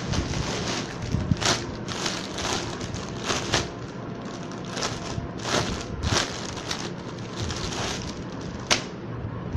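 Cloth rustling and swishing in irregular strokes as a dress is unfolded and handled, with a sharp click near the end.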